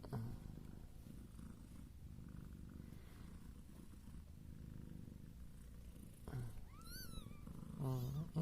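Domestic cat purring steadily, a mother cat with her newborn kittens. A single high-pitched newborn kitten's mew rises and falls about seven seconds in.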